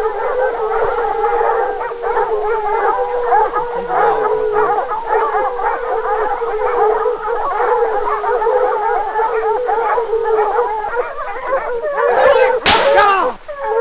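A pack of bear hounds baying, many voices overlapping without a break, at a black bear brought to bay. Near the end a single lever-action rifle shot cracks out over them, the loudest sound, with a short echo after.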